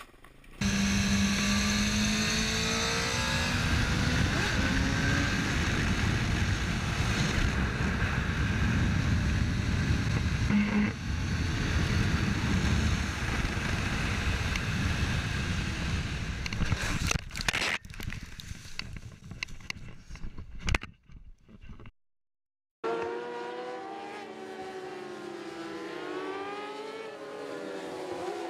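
Vehicle engines running hard under heavy wind-like noise for about twenty seconds. After a brief cut, several engines rev together, their pitches rising and falling past one another.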